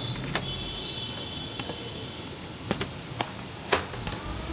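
Handling noise: about six sharp clicks and light knocks at uneven intervals, the loudest nearly four seconds in, over a steady low hum.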